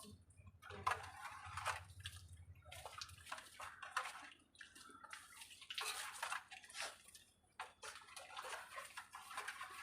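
Water splashing and sloshing in a cooking vessel, with scattered small clicks and knocks of utensils.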